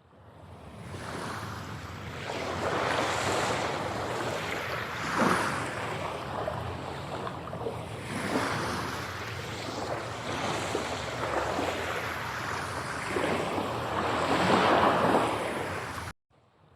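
Ocean surf: waves washing onto a shore, swelling and falling back every few seconds. It fades in at the start and cuts off abruptly just before the end.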